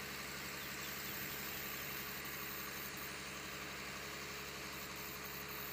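Faint, steady drone of a small engine running at idle, even and unchanging, over a soft background hiss.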